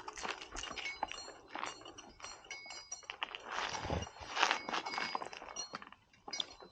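Light metallic clinking and scraping of climbing hardware, carabiners and rigging gear knocking together, as a tree climber shifts position, with scattered short clicks and brief high ringing.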